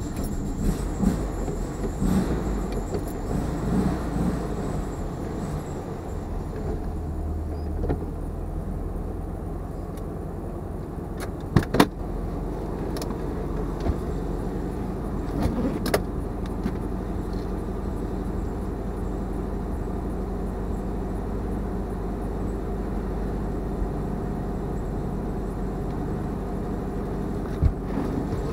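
The air-cooled flat-four engine of a vintage Volkswagen Beetle running steadily at low revs, heard from inside the cabin. A few sharp knocks or clicks stand out above it.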